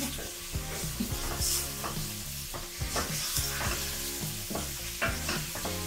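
Chicken korma sizzling in a pot while a spoon stirs it, with irregular clicks and scrapes of the spoon against the pot.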